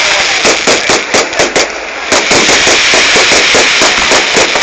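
Fireworks going off: a dense, irregular run of loud bangs and crackles, several a second, easing briefly about two seconds in before picking up again.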